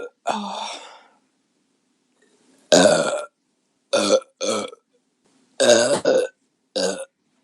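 A woman burping repeatedly: about seven short belches, the first one in the opening second, then one after a pause of nearly two seconds, followed by quick pairs.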